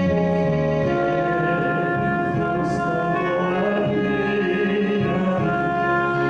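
Instrumental hymn music on an organ-toned keyboard: sustained chords that change every second or so.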